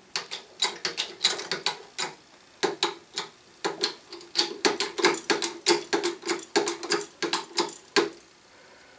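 Small 2-ton hydraulic bottle jack pumped by its short handle, about three clicks a second with a faint squeak on some strokes, as it raises a heavy lathe chuck hanging from a chain hook. The clicking stops about eight seconds in, once the chuck is lifted.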